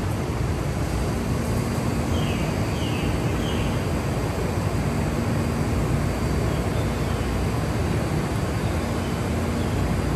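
Taoyuan Airport MRT commuter train, an electric multiple unit, rolling slowly along the platform: a steady rumble of wheels and running gear with a faint electric hum. Three short high squeaks come about two to three and a half seconds in.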